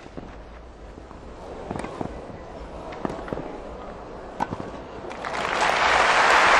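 Tennis rally on a grass court: a few sharp racket-on-ball hits about a second apart. Crowd applause then swells up from about five seconds in as the point is won.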